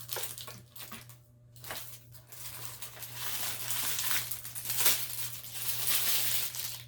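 Packaging being handled: crinkling and rustling, quiet at first and busier and louder through the second half, with one sharper crackle near the end.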